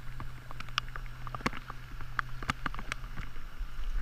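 A hooked bass thrashing and splashing at the water's surface as it is reeled in to the bank, in irregular sharp splashes.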